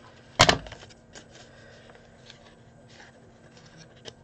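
A pair of scissors is put down on a wooden tabletop with one sharp knock about half a second in, followed by faint clicks and rustles of paper card being handled.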